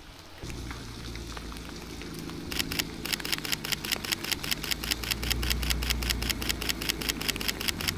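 Ford Mustang GT's V8 engine idling steadily, with a fast, even ticking that joins in about two and a half seconds in.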